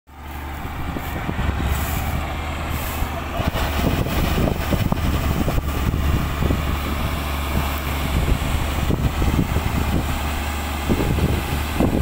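New Holland combine harvester running steadily: a constant deep engine hum under irregular rattling and clatter from its machinery.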